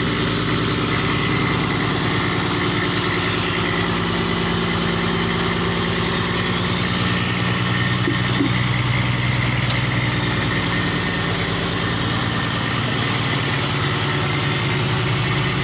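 Fishing boat's engine running steadily, an even unbroken hum.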